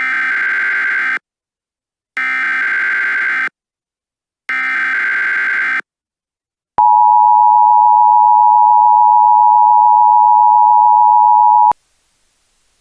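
Emergency Alert System SAME header: three short bursts of warbling data tones, then the two-tone EAS attention signal held steady for about five seconds before cutting off.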